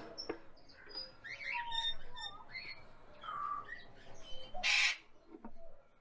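Caged cockatiels chirping and whistling, many short calls overlapping, with one loud harsh burst about three-quarters of the way through. A couple of sharp knocks at the very start as a wooden nest box is handled.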